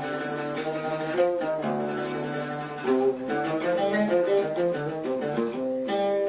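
Instrumental interlude of Arabic song music: plucked and bowed strings playing a melody that moves quickly through many short notes.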